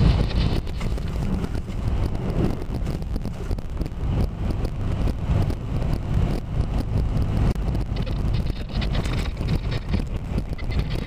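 A vehicle cab on the move through a flooded, hail-strewn street in a storm: a steady low rumble from the engine and the tyres in the water, with rain hitting the windshield as the wipers sweep and wind noise on the microphone.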